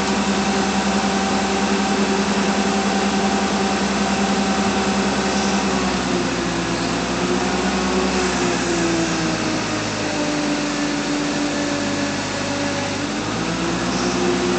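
Forklift running, a steady mechanical drone with several held tones that slide slightly lower about halfway through.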